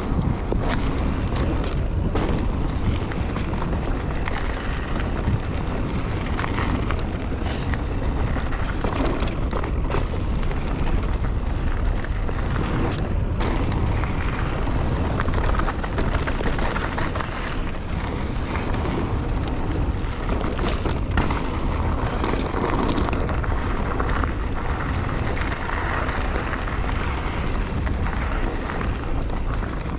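Mountain bike ridden along a trail: steady tyre and wind noise, with frequent clicks and rattles from the chain and frame over bumps.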